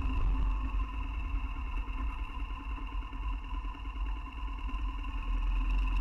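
BMW R1200GS flat-twin engine running steadily on the move, with a constant hum, and wind rumbling heavily on the microphone.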